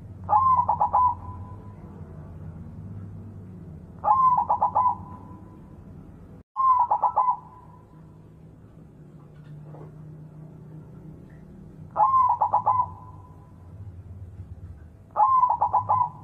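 White zebra dove (perkutut) cooing: five short song phrases a few seconds apart, each a rising note followed by a quick run of rapid notes.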